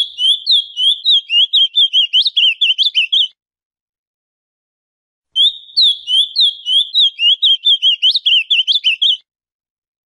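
Male ultramarine grosbeak (azulão) singing: two song phrases of quick warbled notes, each a few seconds long, with a pause of about two seconds between them.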